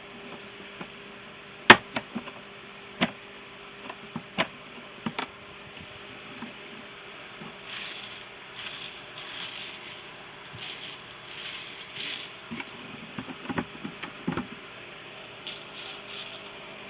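Small metal tool bits and hardware clinking and rattling as they are handled and sorted. A few separate sharp knocks come first, then repeated bursts of rattling.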